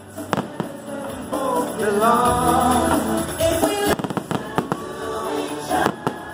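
Aerial fireworks going off in a string of sharp bangs, thickest in the second half, over show music with a singing voice that stands out most in the middle.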